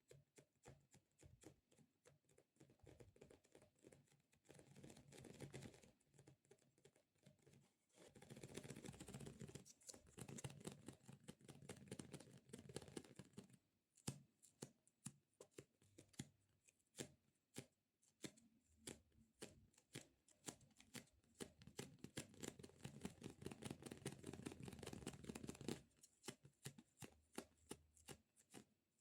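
Fingers tapping and squishing sticky stress-relief squishy toys: rapid light taps throughout, thickening three times into longer stretches of continuous squishing.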